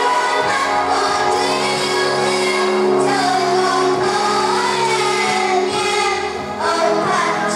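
A song: a singing voice carrying a wavering melody over a steady instrumental backing.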